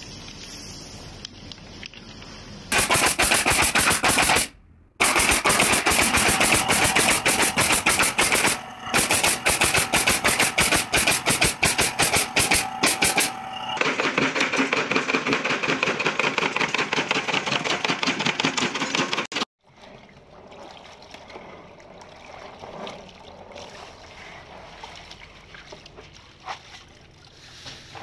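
Wooden sticks clattering as they are sorted by hand. After a cut, machinery gives a loud, fast, machine-gun-like rattle for about ten seconds, then runs with a steady mechanical noise that stops suddenly. Quieter water sloshing follows.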